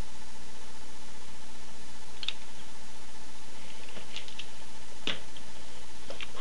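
Steady electrical hum and hiss, with a few small, sharp clicks and taps about two, four, five and six seconds in.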